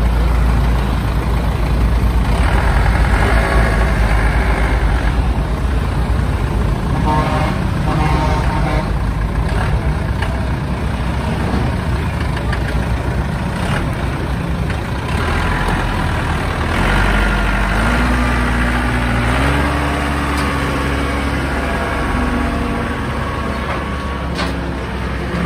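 Shibaura tractor's diesel engine running steadily, its pitch climbing in steps about two-thirds of the way through as the revs go up.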